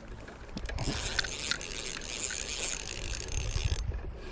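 Spinning reel being cranked, its gears giving a steady whirr that stops briefly near the end and then starts again.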